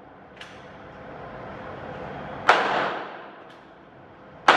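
.22 LR gunshots: two sharp cracks about two seconds apart, each ringing out briefly. A faint click comes about half a second in.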